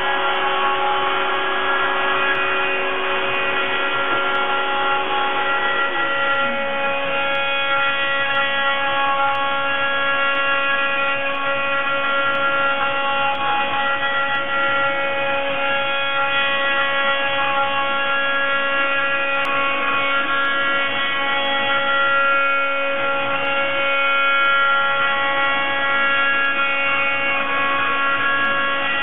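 Desktop CNC milling machine cutting white polystyrene sheet: the spindle runs with a steady whine and the axis motors hum as the small cutter moves across the plastic. One lower tone drops in pitch about six seconds in.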